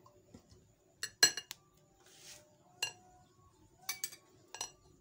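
Metal spoon clinking against glassware as oil is spooned from a glass jar into a glass mixing bowl of flour: a string of sharp clinks, the loudest about a second in, with a short soft swish in between.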